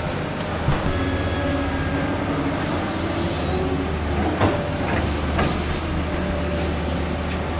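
Tracked hydraulic excavator running steadily, its diesel engine a constant low hum, with a few sharp knocks as it works: one just under a second in and two more around four and a half and five and a half seconds.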